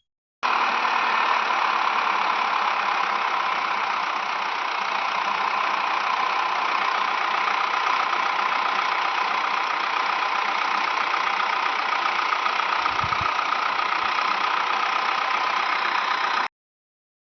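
A steady engine-like running noise, starting abruptly just after the start and cutting off suddenly near the end.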